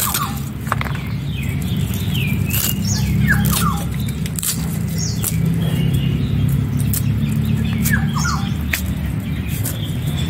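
Red amaranth leaves being chopped against an upright boti blade, with irregular crisp cutting strokes. Birds chirp with short falling calls several times, and a steady low hum runs underneath.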